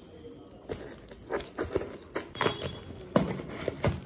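Scissors snipping and hacking through taped plastic courier packaging, with the plastic crinkling: an irregular run of clicks and crackles starting under a second in. The scissors' edge has gone dull, by the owner's account, so the cutting is rough.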